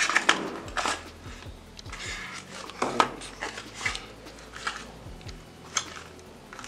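Handling of a black cardboard product box and its tray: scattered clicks, taps and a brief rustle as the wireless earbuds' charging case is lifted out.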